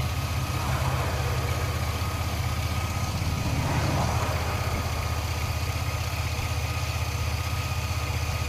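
2002 Chevy S10 Blazer's 4.3-litre V6 idling, with a thin steady high-pitched whine over it and two brief swells in engine sound, about a second in and about four seconds in. The whine is the unexplained noise that shows up when the engine is accelerated.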